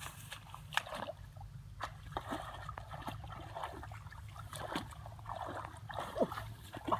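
Hands sloshing and splashing in shallow muddy water among grass, feeling for fish, with small irregular splashes and trickles. A brief squeaky sweeping sound comes near the end.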